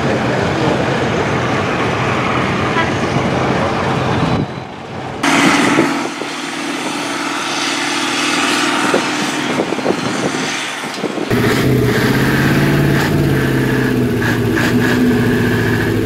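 Long-tail boat engines running at high revs, in three clips joined by hard cuts. The second clip, from about five seconds in, has less low rumble and more hiss. The third, from about eleven seconds in, is a close, deep engine with a strong steady tone.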